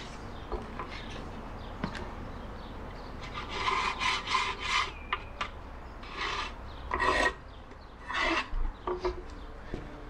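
Wooden beehive boxes scraping and rubbing against wood as they are handled, in a string of short scraping strokes, the busiest stretch about three to five seconds in and more near seven and eight seconds.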